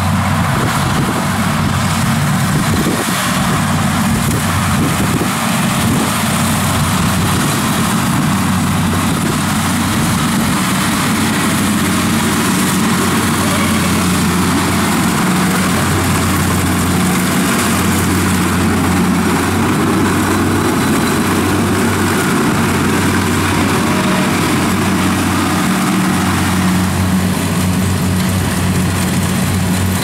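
Kubota DC70 combine harvester running steadily under load while harvesting standing rice: an even diesel engine hum together with the noise of its cutter and threshing machinery.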